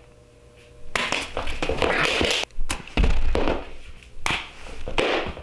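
Close-up rustling and scuffing of a person moving, with a heavy thump about three seconds in, typical of handling and clothing noise as he tries to knock his sunglasses off.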